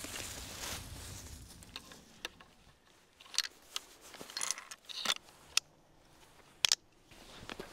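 Footsteps rustling through dry leaves and undergrowth, then a series of sharp metallic clicks and snaps as a hunting rifle's action is handled and worked, the loudest near the end.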